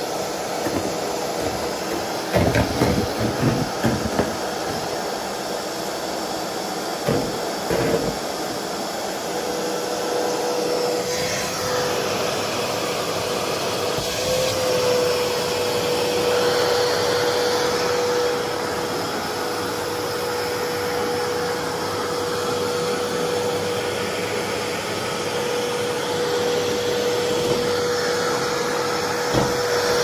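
Vacuum cleaner running steadily, air rushing through its hose. A few thumps and knocks come in the first eight seconds, and from about nine seconds a steady tone is heard over the rushing air.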